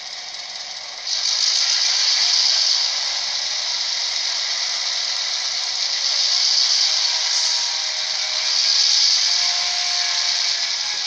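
An ESU sound decoder in an HO-scale Athearn SD9 model plays an EMD 567 diesel engine sound through the model's small speaker, thin and hissy with no bass. It gets suddenly louder about a second in, then swells and eases a few times.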